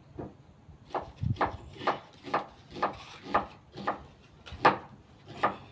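A series of short, sharp animal calls repeated about twice a second.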